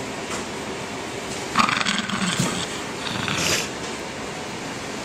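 A corgi growls in two short, raspy bouts, the first about a second and a half in and the second a moment later. It is warning off being touched.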